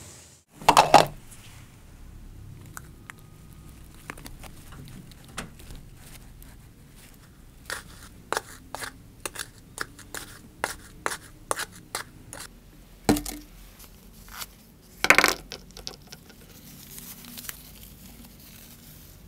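Handling sounds of a latex balloon, a plastic funnel and baking soda: irregular taps, clicks and scraping, with a few louder rustling knocks, one about a second in and two more later.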